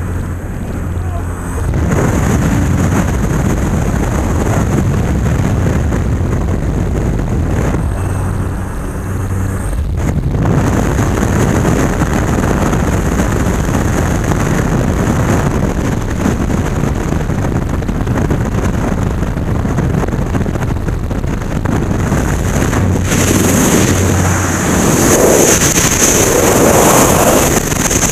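A light jump plane's engine drones steadily under heavy wind noise at the open door. About two-thirds of the way through, the engine fades and the steady rush of freefall wind over the helmet camera's microphone takes over.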